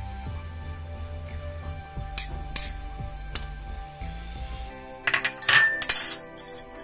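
A metal spoon clinking and scraping against a plate and the steel mixer jar as chopped leaves are pushed in: a few sharp clinks, then a louder clatter about five seconds in.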